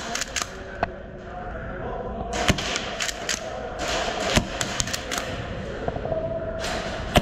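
Airsoft guns firing: a scattered series of sharp cracks and clicks, a few near the start and more from about two and a half seconds in.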